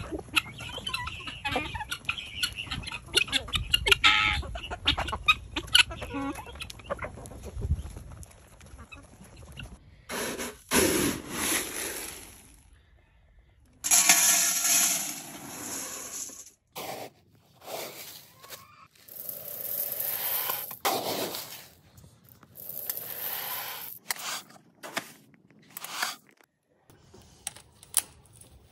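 A flock of chickens clucking while they peck at feed, with many quick clicks for the first eight seconds or so. Then pelleted chicken feed is poured and scooped into a bucket in a series of rushing pours with short pauses between.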